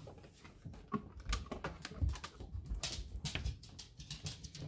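A dog's claws clicking and tapping on a wooden doorstep and deck as it goes out through an open storm door: a run of light, irregular ticks.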